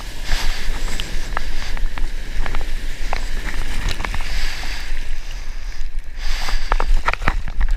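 Whitewater rushing and spraying around a surfboard riding a small breaking wave, with a heavy low rumble of wind and water buffeting the camera's microphone. Scattered sharp ticks of spray hit the camera housing.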